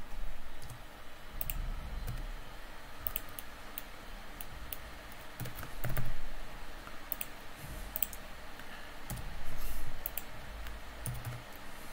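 Irregular clicking of computer keyboard keys and a mouse as shortcuts are pressed, with two louder low thumps, one about halfway through and one near the end.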